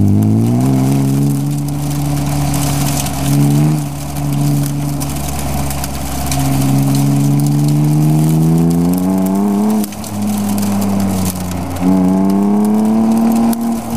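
BMW E36 M3's straight-six engine heard from inside the cabin, revving up hard under acceleration, easing briefly, then climbing steadily before a sharp drop about ten seconds in and another rise near the end. A steady rush of noise runs underneath it.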